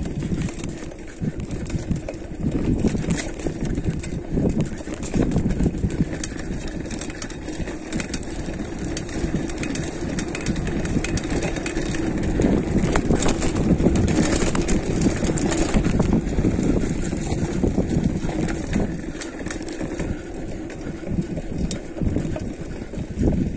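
Mountain bike rattling and knocking over a rough dirt trail on a downhill run, with wind rumbling on the microphone; it grows louder about halfway through.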